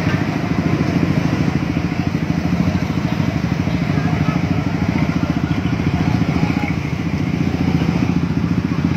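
Many motorcycle and scooter engines idling and creeping along close by, a steady low rumble with a fast, even pulse.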